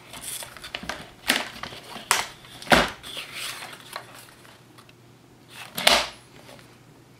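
Patterned paper being handled on a sliding-blade paper trimmer: a few light taps and clicks as the sheet is positioned and the rail is set down, then a short scraping swish about six seconds in as the blade carriage slides along the rail and cuts the paper.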